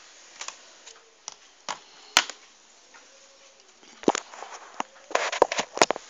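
Sharp plastic-and-metal clicks and light knocks from a notebook's hard drive and casing being handled: a few single clicks, then a quick cluster of them near the end.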